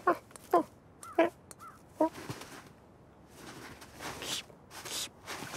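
Short, squeaky cartoon animal chirps, four of them in the first two seconds, followed by a run of soft whooshing rustles.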